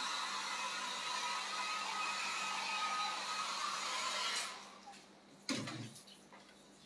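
Electric hair dryer blowing steadily, switched off about four and a half seconds in. A single dull knock follows about a second later.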